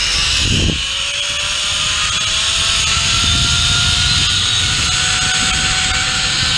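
Zipline trolley pulley running down the steel cable: a steady whine that rises slowly in pitch as the rider gains speed, over loud wind rushing on the microphone.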